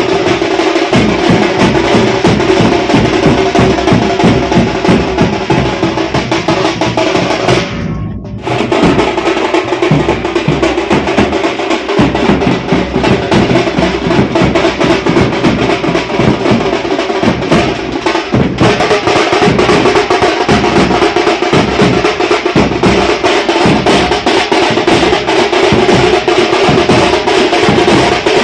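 A group of drums playing a fast, dense beat together, with a brief dip about eight seconds in before the playing carries on.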